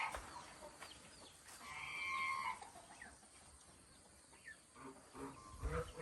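Farm poultry calling. A held, pitched call comes about two seconds in, short high peeps are scattered throughout, and a burst of several calls comes near the end.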